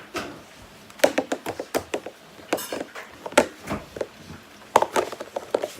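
Irregular knocks, taps and clicks of a plastic slime container and bowl being handled as slime is put into the bowl, with a short rattle partway through.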